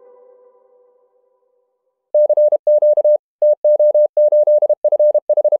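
Music fading out, then, after a short silence, a single steady mid-pitched tone keyed on and off in short and long elements: Morse code, like a radio operator's CW sidetone.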